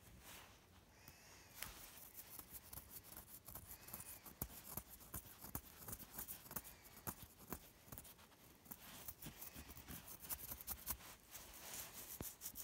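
Faint scratching and irregular, rapid clicking of metal tweezers picking and scraping at dry, flaky skin.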